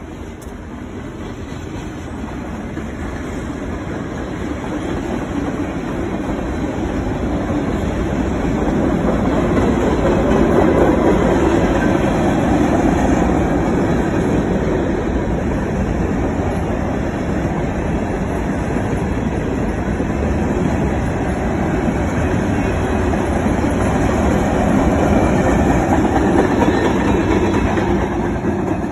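Freight cars, covered hoppers among them, rolling past with their steel wheels running on the rails. It grows louder over the first ten seconds, then stays steady.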